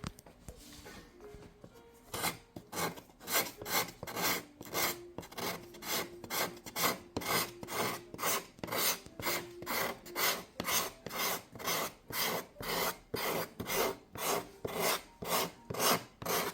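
Wood being filed or sanded in regular back-and-forth rasping strokes, about two to three a second, starting about two seconds in.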